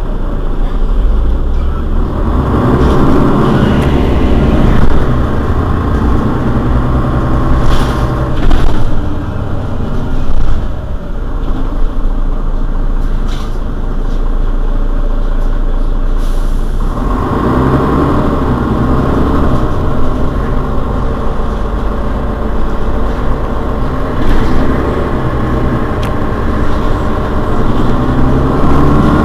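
Mercedes-Benz Citaro city bus engine idling at a standstill with a steady low hum. A louder rushing layer swells in a couple of seconds in, drops away around the middle, and comes back later. A few short sharp clicks or hisses sound around eight to ten seconds in.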